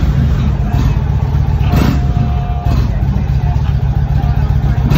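Hip-hop music playing through the Indian Chieftain Limited's fairing speakers: a heavy, steady bass with sharp drum hits about once a second and a few held synth notes, no vocals yet.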